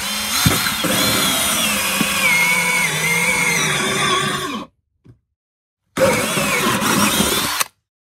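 Cordless drill driving a 3-inch hole saw through a plastic sump basin lid. It runs for about four and a half seconds, stops, then runs again for about two seconds near the end, its motor pitch wavering as the saw cuts.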